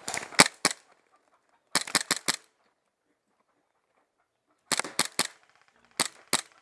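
Airsoft gun firing in four short bursts of rapid, sharp pops, two to five shots each, with quiet gaps between the bursts.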